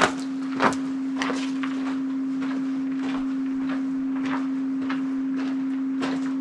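Footsteps splashing through a shallow river about twice a second, the first two the loudest, over a steady low hum at one pitch. The hiker did not notice the hum on the spot and found it only when editing.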